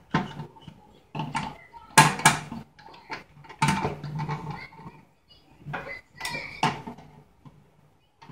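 Metal clanks and knocks from a 1958 Tonka pressed-steel toy pickup truck being handled, turned over and set down on a tabletop, in several bursts, the loudest about two seconds in.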